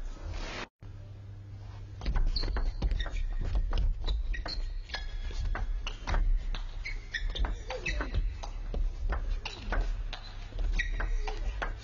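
Table tennis rally: the ball clicking sharply and irregularly off the bats and the table, with short high shoe squeaks on the court floor. There is a brief cut-out just under a second in.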